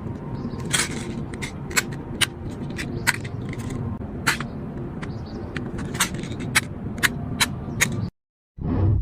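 Plastic fidget toys being handled: a steady scraping rustle with sharp, irregular clicks and snaps, about two a second. The sound cuts off abruptly near the end, followed by one short low thump.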